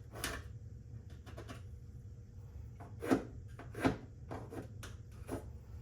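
Light knocks and clicks from handling tools against the wall while marking hole positions, the two loudest about three and four seconds in, over a low steady hum.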